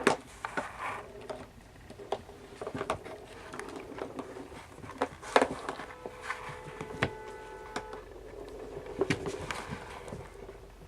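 Kittens playing, making scattered light knocks, taps and scrapes on hard surfaces at an irregular pace. A faint steady tone of several pitches sounds for about two seconds midway.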